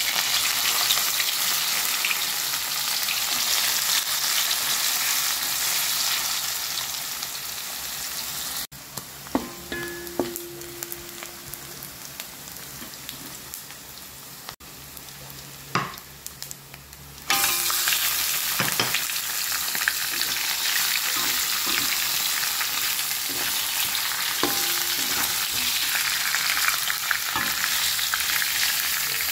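Chopped ginger, lemongrass, chilli and garlic sizzling in hot oil in a wok, with a metal spatula clinking and scraping against the pan. The sizzle drops away for a stretch in the middle, broken by a few sharp clunks, then comes back loud about two-thirds through as chunks of raw snakehead fish fry.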